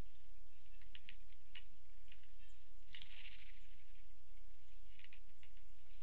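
Woodpeckers pecking at suet in a wire cage feeder: scattered light taps and ticks, with a brief rustle about halfway through. A steady low electrical hum runs underneath.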